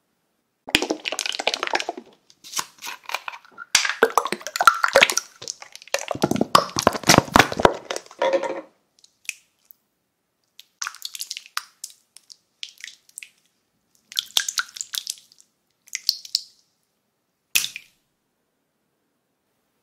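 Clear slime being squeezed and pressed in the hands: wet, sticky squishing and crackling in irregular bursts, dense through the first half, then shorter, sparser squishes.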